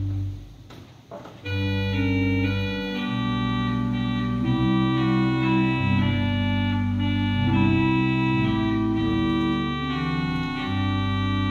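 Organ playing a slow hymn in full sustained chords over a deep pedal bass. The chords break off for about a second and a half near the start, with a few faint clicks as stops are changed, then the next phrase comes in full.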